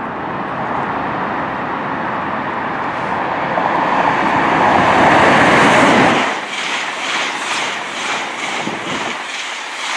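East Midlands Trains HST (InterCity 125) passing at speed, led by a Class 43 power car. The rushing noise of the approaching train builds to its loudest about five to six seconds in, then drops suddenly as the coaches follow. The coaches go by with a steady run of wheel clicks, about three a second.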